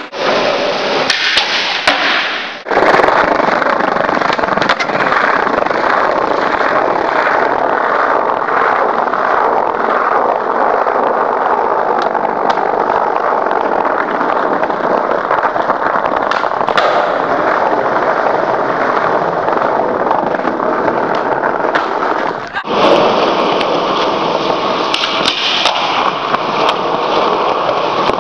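Skateboard wheels rolling over hard pavement, a loud steady rumble with scattered sharp clacks of the board. The sound drops out briefly about two and a half seconds in and again near the end.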